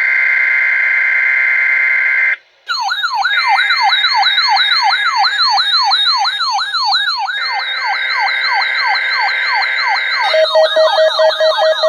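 Electronic emergency alert tones. A steady shrill two-tone screech lasts about two seconds and breaks off briefly. Then a siren tone sweeps downward over and over, about three sweeps a second, over a steady high tone. About ten seconds in, a rapid low beeping joins it.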